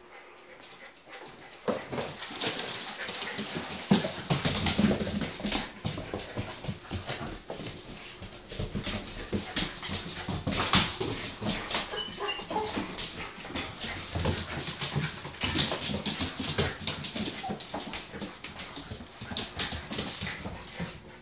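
Two puppies play-wrestling on a wooden floor: dog whines and small vocal noises over scuffling and many short knocks. It starts about two seconds in and continues.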